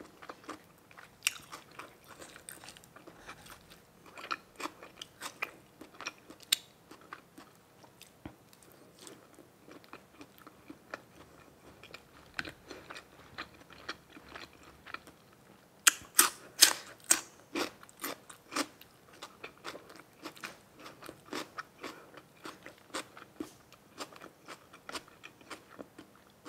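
A person chewing and biting grilled pork meatballs and red sausage, with many short wet clicks and crunches. About 16 seconds in comes a louder run of crisp bites.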